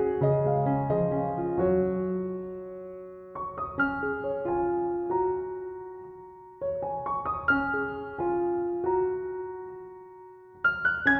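Background piano music: a slow melody of struck notes that ring and fade away, with a new phrase starting about every three seconds.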